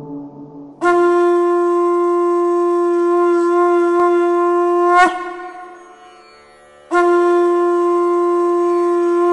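Conch shell (shankh) blown in two long, steady blasts. The first lasts about four seconds and ends with a quick upward break in pitch. The second starts about seven seconds in.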